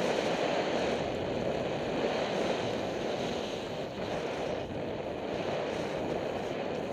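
Steady rush of wind buffeting the microphone of a camera carried by a skier moving downhill.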